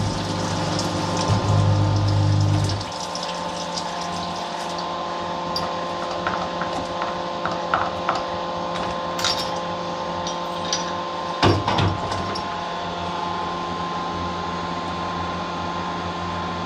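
A cylinder-honing machine honing an engine block's bore: the spinning honing head gives a low drone that stops about three seconds in. The machine's steady hum and the wash of honing oil carry on, with metal clicks from the honing tool and a sharp knock a little past the middle.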